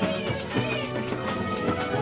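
Music: sustained melody lines over a steady beat of short strokes, about four a second.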